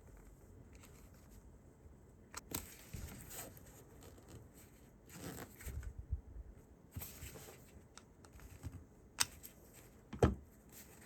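Quiet handling noise as a pocket clip is screwed onto a Kydex knife sheath: soft rustling and scraping with a few light clicks, the two sharpest near the end.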